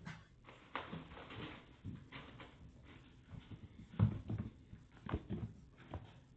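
Kitten's paws running and tapping on a hardwood floor: scattered light taps and small thumps, the loudest about four and five seconds in.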